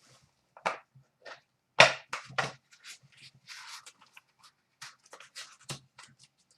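Trading cards and their card-and-plastic packaging being handled: a string of sharp little clicks and slaps, a soft rustle about halfway through, then more light ticks.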